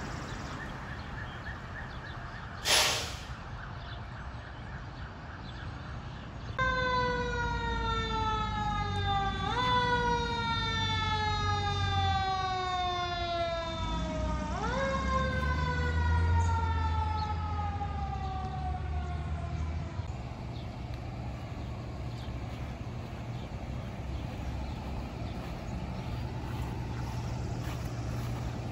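A short, sharp bang about three seconds in. Then an emergency-vehicle siren starts, its pitch gliding slowly down and jumping back up twice before it winds down for good, over a low engine rumble.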